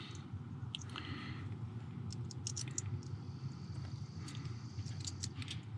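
Scattered light clicks and ticks of small wire connectors being handled and pushed together by hand, over a faint steady low hum.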